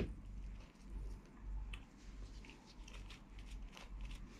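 Gloved hands pulling apart a boiled crab's body: faint, scattered clicks and crackles of shell and meat coming away.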